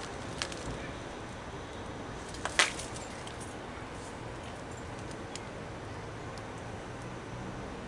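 A faint steady hiss with a few sharp clicks. The loudest click comes about two and a half seconds in, with a smaller one just after the start.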